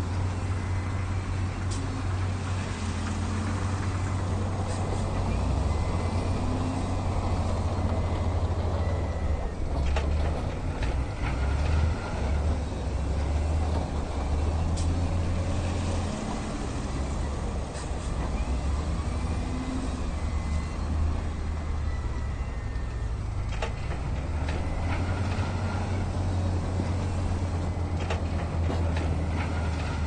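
Heavy diesel engines of earthmoving machinery running steadily with a deep drone, with a few sharp knocks and clanks along the way.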